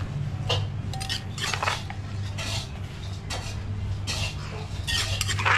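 Metal spoon scraping against a clay mortar and clinking on a plastic bowl while salad is scooped out. It comes as a string of short scrapes and clinks about once a second, the loudest near the end.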